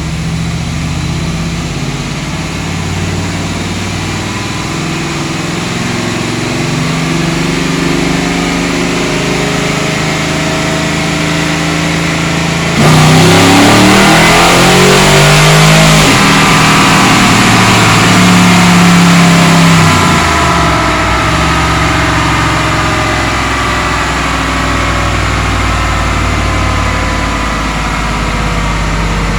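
Tuned 6.2-litre V8 with a BTR Stage 3 truck cam running steadily in a 1978 K10 pickup. About thirteen seconds in it gets suddenly louder and revs up and down for about seven seconds, then drops back to a steady run.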